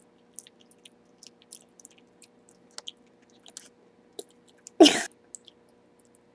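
Small wet mouth clicks and smacks of a child licking and sucking a sour powder-dipped candy lollipop, with a short, louder breathy outburst about five seconds in.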